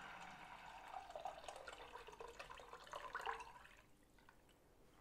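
Meat broth poured from a jug into a pot of fried meat and onions: faint pouring and splashing of liquid that stops a little before the end.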